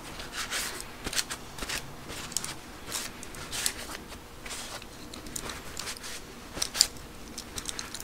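Paper towel rubbing and rustling over a steel locking wrench, wiping off rust-remover residue in a series of short, irregular swishes, with a sharp click near the end.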